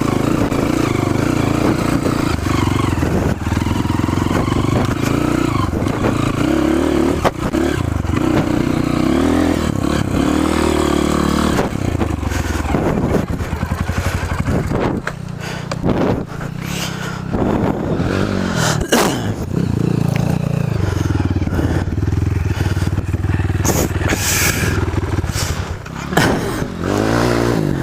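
Trail motorcycle engine running loudly under load, the engine note rising and falling, with scraping and clattering knocks that come thicker in the second half.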